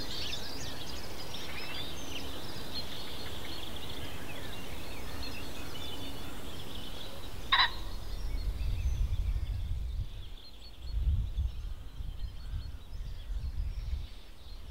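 Woodland bird ambience: small birds chirping and twittering, with one short, louder call about seven and a half seconds in. After that a low, uneven rumble takes over while the birdsong fades.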